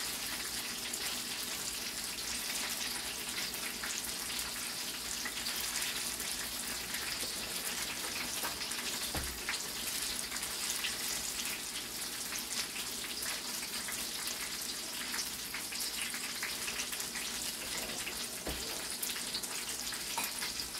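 Banana pieces frying in hot oil in a wok: a steady sizzle full of fine crackles.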